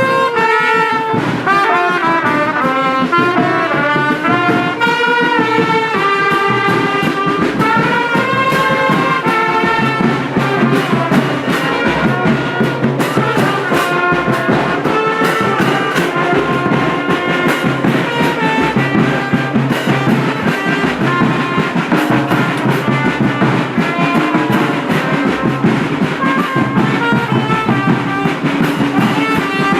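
Music led by brass instruments, trumpets and trombones playing a melody, with a steady beat coming in underneath about ten seconds in.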